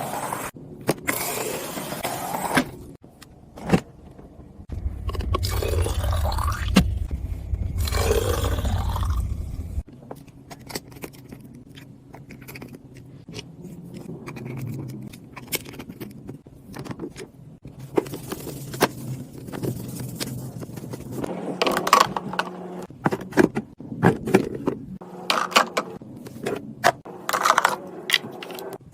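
Snacks and containers being handled and set in place during restocking: a string of clicks, knocks and scrapes with rustling packaging, and a low rumble lasting about five seconds near the start.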